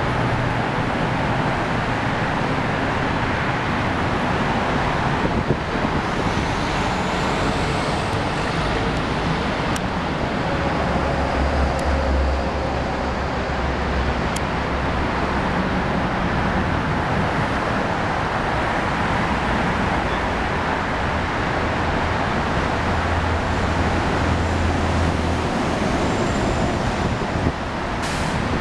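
Steady road traffic noise, a continuous hiss and rumble of passing cars, with a deeper rumble from heavier vehicles swelling twice.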